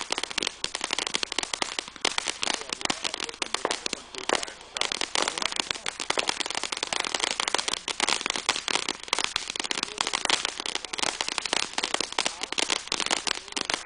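Ground fountain firework spraying sparks and crackling with a dense, rapid stream of sharp pops.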